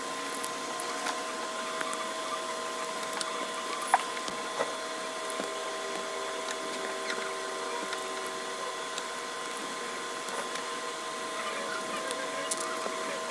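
Small clicks and rustles of a needle, thread and plastic cap strap being handled while hand-sewing, with one louder click about four seconds in, over a steady background hum.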